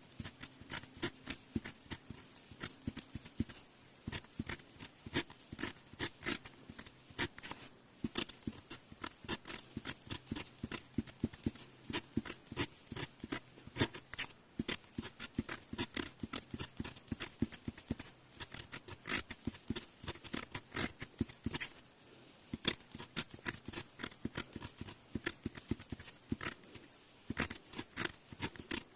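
Glass pen nib scratching on paper in quick, short strokes while writing kanji, with brief pauses between characters.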